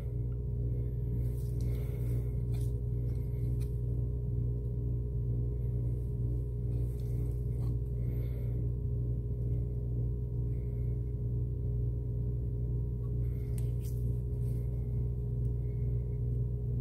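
Steady low droning hum with several held tones and a faint even pulsing, unchanging throughout.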